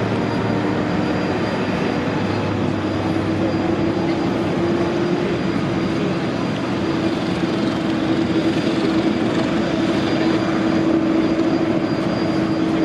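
Jet airliner engines running at taxi power: a steady rushing noise with a held tone that steps slightly higher about three seconds in.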